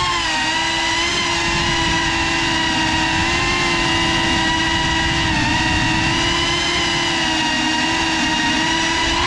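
GEPRC Cinelog35 cinewhoop's motors and ducted propellers whining steadily at a near-constant pitch, heard from its onboard camera, with slight dips in pitch as the throttle eases. The sound cuts off suddenly at the end.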